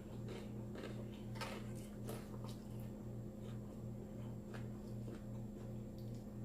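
Chewing a mouthful of salad with lettuce and croutons: soft, irregular crunches and wet mouth clicks several times a second, over a steady low hum.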